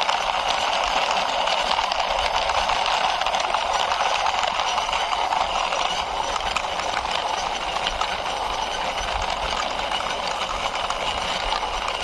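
Plastic toy bus pushed along by hand, its wheels rolling with a continuous fine rattle.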